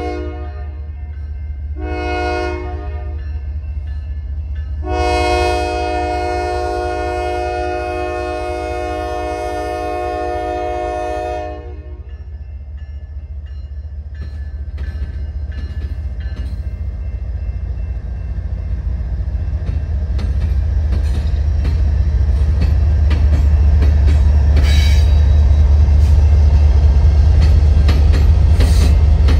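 Diesel locomotive's multi-chime air horn sounds a short blast, then a long one of about seven seconds. Afterwards the train's low engine rumble and wheel clatter grow steadily louder.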